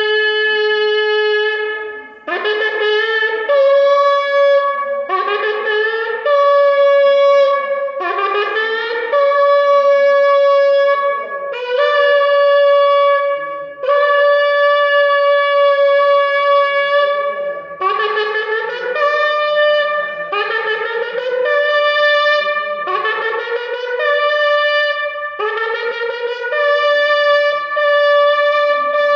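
Shofar being blown in a series of about nine long blasts, each sliding up in pitch and then held on a steady note, with short breaks between.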